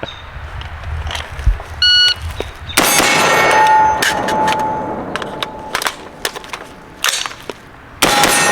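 A shot timer beeps once, then the HM Defense 5.56 AR-15-style rifle fires and steel targets ring. Clicks and clatter of a magazine change follow, and a last loud shot about six seconds after the beep sets the steel ringing again.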